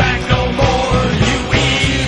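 Loud rock music with a fast, steady drum beat.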